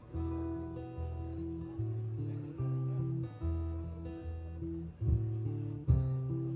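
Live acoustic guitar music: strummed chords in a song's instrumental opening, changing about once a second, with sharp accented hits near the end.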